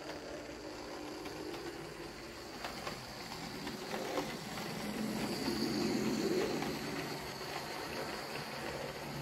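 A 00 gauge model train running along the track, a steady rumble of wheels and motor with a few light clicks. It grows louder to a peak about six seconds in as the train passes.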